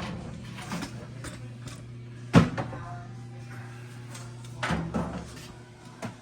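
Knocks and bangs of equipment being handled and moved: one sharp loud bang a little over two seconds in, then a short cluster of smaller knocks near the five-second mark, over a steady low hum.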